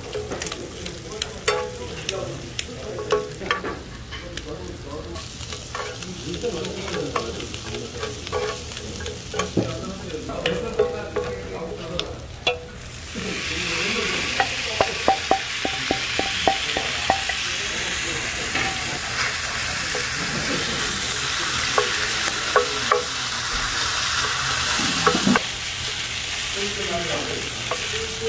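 Pork sizzling on a hot grill, with clicks and clatter over it. About halfway through, the sizzling suddenly grows much louder, then drops back near the end.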